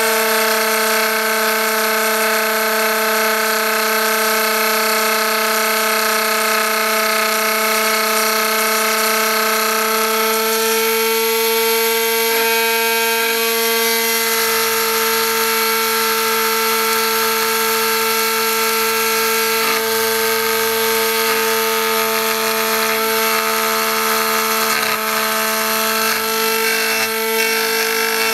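Homemade CNC mill's spindle whining steadily as a 3 mm three-flute end mill cuts aluminium. From about halfway through, a lower hum joins in and shifts in pitch every second or so.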